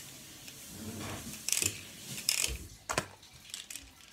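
Plastic ratcheting and clicking of a Beyblade launcher being handled and loaded: a few short rasps, with a sharp click about three seconds in.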